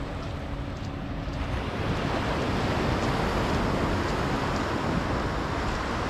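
Sea waves breaking and washing up on a sandy beach, a steady rush that swells louder about a second and a half in.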